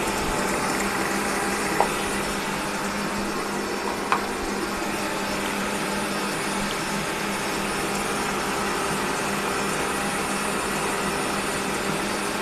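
Steady whir of a kitchen appliance's motor or fan, with two light clicks about two and four seconds in.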